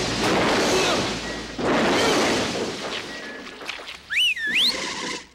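Cartoon sound effects: two long bursts of crashing noise, then about four seconds in a loud two-fingered taxi-hailing whistle that rises, dips and rises again, whistled by a cartoon bulldog.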